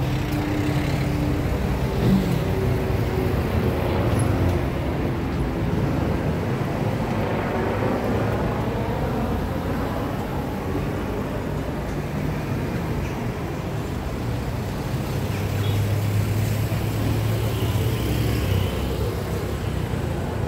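Steady motor-vehicle noise: an engine running with a low hum amid road traffic.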